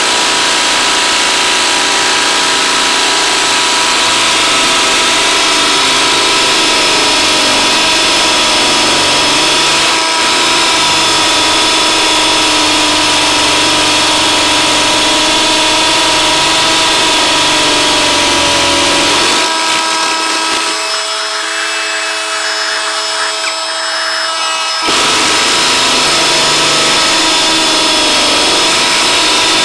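Ryobi One+ brushless hammer drill running continuously under load, its bit grinding into a concrete block, with a steady motor whine. The grinding eases for a few seconds about twenty seconds in, then picks up again.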